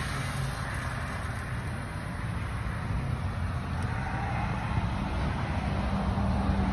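A motor running steadily with a low rumble, a little stronger near the end.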